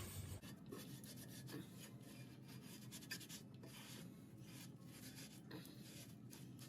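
Faint scrubbing: rubbing strokes of hand-cleaning the floor around a toilet flange, about two or three strokes a second, over a low steady hum.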